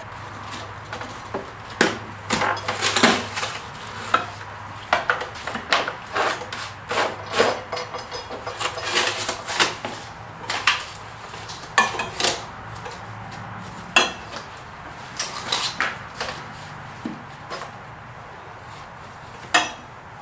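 Irregular metallic clanks, knocks and scrapes of a Harbor Freight manual tire changer's steel demount bar being levered around the center post to work a tire bead off an aluminum rim, with the bar grinding against the rim.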